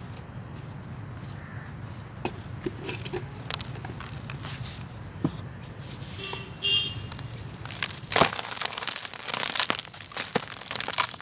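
A hand crushes dry charcoal-cement balls in a plastic tub, with dense gritty crunching and crackling as the powder and grains pour down. It starts about eight seconds in; before that there is only a low hum and a few scattered ticks.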